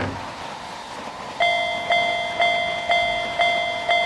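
Railroad crossing warning bell dinging about twice a second, starting about a second and a half in: the signal that a train is approaching and the barrier is down.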